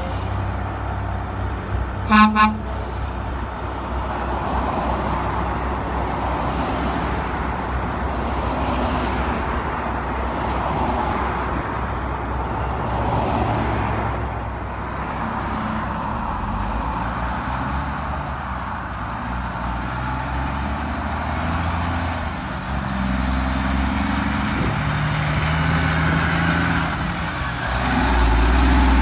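Diesel engine of a loaded Kenworth K100 cabover semi-truck pulling away and accelerating. Its pitch rises and drops in steps as it shifts through the gears, and it grows louder near the end as the truck comes close. A horn toots twice briefly about two seconds in.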